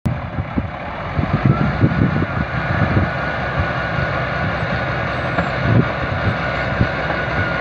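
Crawler bulldozer's diesel engine running steadily under load as the blade pushes soil, with irregular low thuds and a faint steady whine.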